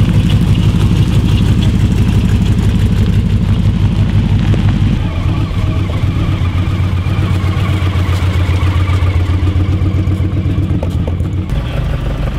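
Engines of classic vehicles passing slowly one after another: an open-engined T-bucket hot rod with a loud, low, pulsing note for the first five seconds, then a motorcycle trike's engine running steadily, and a convertible sports car near the end.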